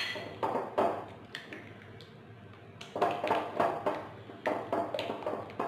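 A utensil clinking and scraping against a mixing bowl in short, irregular strokes while the lime cream is stirred.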